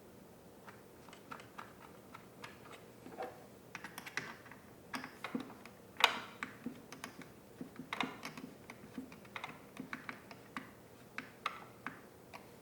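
Irregular light clicks and taps of plastic parts being handled and snapped together as a chainsaw's air filter and cover are refitted, with sharper clicks about six and eight seconds in.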